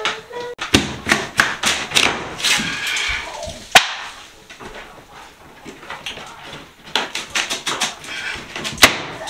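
Drywall ceiling being ripped down by hand: a run of irregular sharp cracks and crunches as the gypsum board snaps and tears, the sharpest crack about four seconds in.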